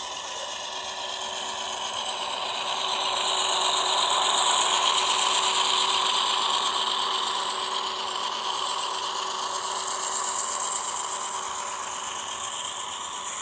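HO-scale ScaleTrains Dash 9 model locomotive and intermodal cars running past on sectional track, a steady rattling of wheels and motor with a faint whine. It grows loudest about four to five seconds in as the locomotive passes, then eases off as the trailer-carrying flatcars roll by.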